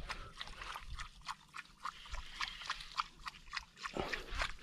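Small baitcasting reel clicking rapidly and unevenly as it is cranked to wind in a hooked fish on light jigging tackle.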